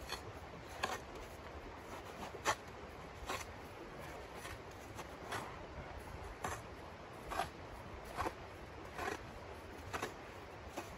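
Small hand shovel scraping and chopping into crusty snow, a short stroke about once a second.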